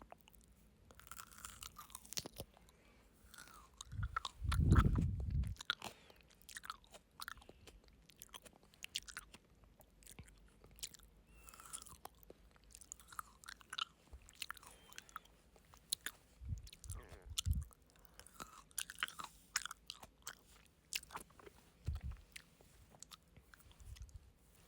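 Frozen grapes being bitten and chewed, with many crunches and clicks throughout. A loud low rumble lasts over a second from about four seconds in, and a few shorter low thumps come later.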